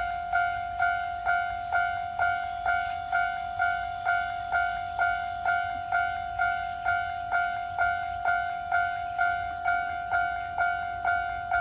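Japanese railroad crossing warning alarm ringing its steady "kan-kan" clang, about two strikes a second. Each strike is a ringing two-note tone.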